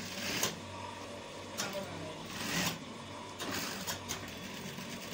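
Industrial sewing machine stitching the curved armhole seam of a waistcoat in short runs, its motor humming steadily between them, with scattered clicks of the fabric and machine being handled.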